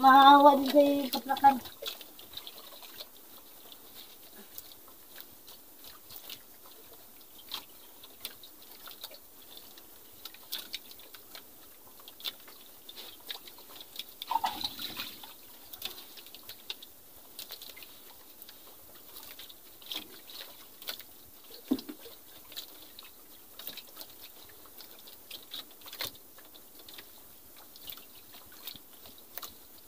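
A short untranscribed voice at the start and again about halfway through, over faint scattered ticks, knocks and small water sounds around a wooden outrigger fishing boat.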